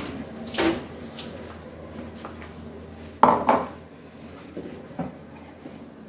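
Kitchen utensils knocking and clattering against cookware: one knock about half a second in, two louder clatters a little after three seconds, then lighter taps near the end.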